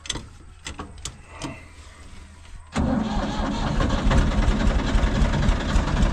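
Old Ford backhoe's engine being started. A few clicks sound over a low hum, then about three seconds in the engine fires and keeps running loudly and steadily.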